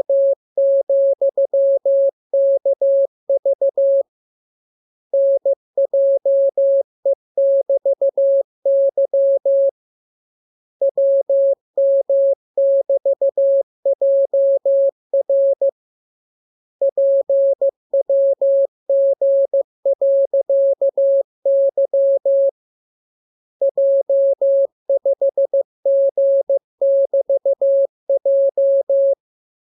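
Morse code practice signal: one steady tone keyed on and off in dots and dashes. It is sent as five runs of characters, each a few seconds long, with about a second's pause between them.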